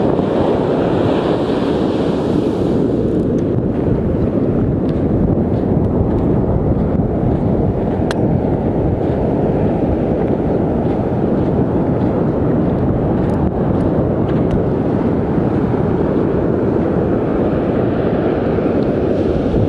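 Strong, steady wind buffeting the microphone over the rush of breaking surf.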